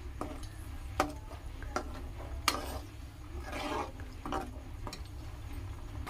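Perforated steel spoon stirring and scraping onion paste frying in oil in an aluminium kadhai, with several sharp knocks of the spoon against the pan, the loudest about one and two and a half seconds in.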